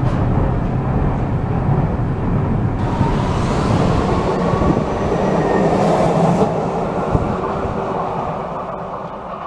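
Vienna U2 metro train running: rumbling and rattling on the rails, turning brighter and hissier about three seconds in as a train runs past a platform, then gradually fading as it pulls away.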